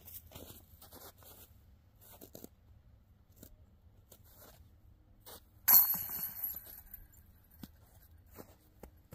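Footsteps crunching and scraping on crusted snow, a scattering of short crunches, with one sudden much louder crunch close by a little past halfway that fades over about a second.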